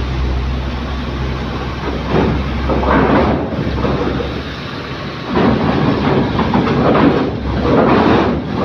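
Heavy trucks driving off a ferry's bow ramp: rumbling and clanking as their wheels roll over the steel ramp plates, in two swells, over a steady low hum.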